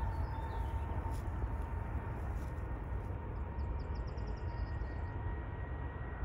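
Jet airliner engines running: a low rumble with a steady high whine over it.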